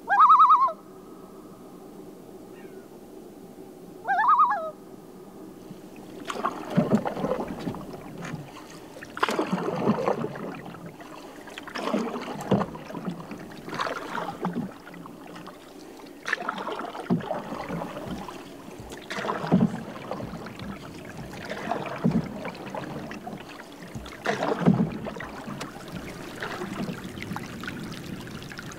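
A bird gives two short calls about four seconds apart. Then a canoe paddle dips and pulls through the water in a steady stroke about every two and a half seconds.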